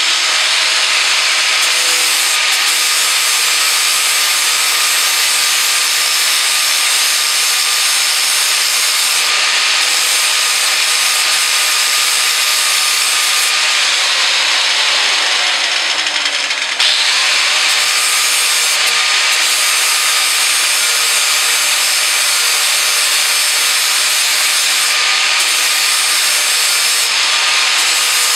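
Corded angle grinder sharpening the edge of a steel lawn mower blade: a steady high motor whine over a harsh grinding hiss. About halfway through, the motor's pitch sinks and then climbs back up as it slows and spins up again.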